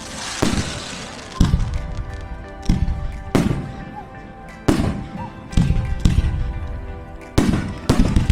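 Fireworks display: aerial shells bursting in a string of sharp bangs, about one a second, each trailing off in a rumbling echo, with music playing underneath.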